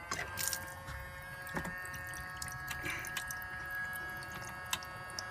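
The camper's small electric sink pump runs with a steady whine while water flows from the faucet into a stainless sink, with a few light clicks from the faucet being handled.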